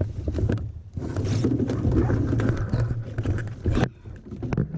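Gusty wind rumbling on the microphone over the sounds of a canoe being paddled, with scattered small knocks; the rumble drops away briefly twice between gusts.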